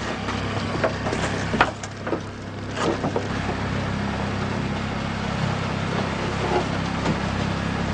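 A boat's engine running steadily with a low hum, with a few knocks and clatters in the first three seconds.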